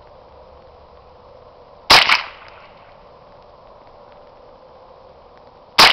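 Two rifle shots about four seconds apart, each sharp report trailing off briefly, from a scoped rifle fired off a bench rest.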